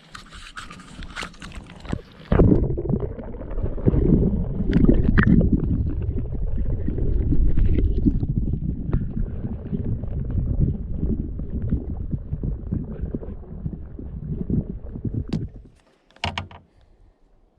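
Water splashing for about two seconds, then a long, loud, muffled low rumble of water close to the microphone that cuts off suddenly near the end.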